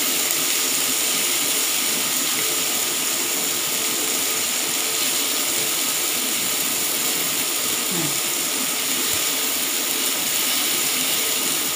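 Chicken sizzling on a ridged grill pan over a gas burner: a steady, even sizzling hiss.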